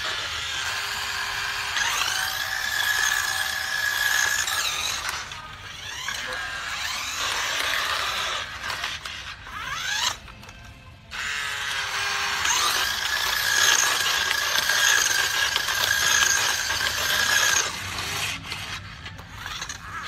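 Remote-control toy motorbike running with its electronic sound effects playing: a shrill, high-pitched squealing sound in two long stretches with a short lull between them.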